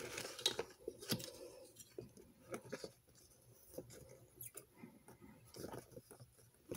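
Faint, scattered paper rustles and light taps as hands flatten the pages of an open model-kit instruction booklet.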